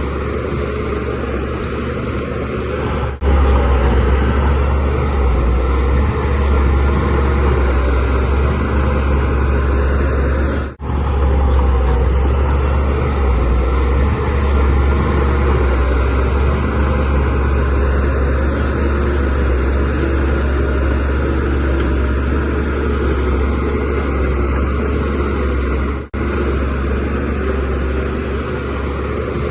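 Shantui DH17C3Pro bulldozer's diesel engine running steadily under load, a loud low drone, broken by three very short dropouts.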